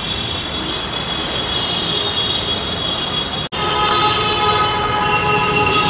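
Metro train passing on the elevated line: a steady whine of several high tones over rumbling street noise. The sound briefly drops out about three and a half seconds in, and after that the tones are louder and more numerous.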